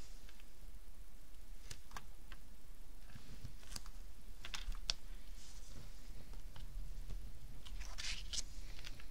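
Hands handling strips of double-sided tape and clear plastic film on a craft table: scattered light clicks and taps, with a short crinkle of the plastic about eight seconds in.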